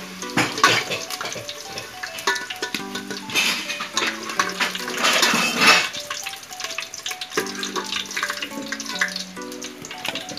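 Hot oil sizzling in an aluminium pot as fried potato pieces are lifted out with a slotted metal spoon, with clinks and scrapes of the spoon against the pot; the sizzle swells in bursts near the start and again in the middle. Background music plays throughout.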